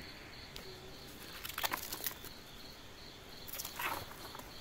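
Insects chirping in an even rhythm of about four high pulses a second, fading about halfway through, with a few brief rustles.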